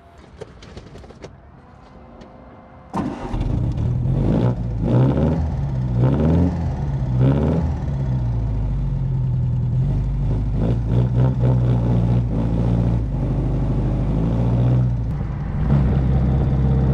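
MG TD's 1.3-litre XPAG four-cylinder engine starting after a few faint clicks. It then runs, revving up and down several times, and gets louder near the end as the car drives off.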